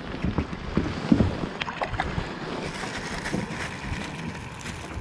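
Wind buffeting the microphone over water sloshing against a floating fishing raft, with a few light clicks about one and a half to two seconds in.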